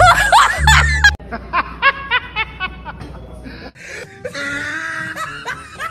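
Edited-in music and a comic laugh sound effect: a quick run of short snickering notes that step down in pitch, just after a sudden cut about a second in.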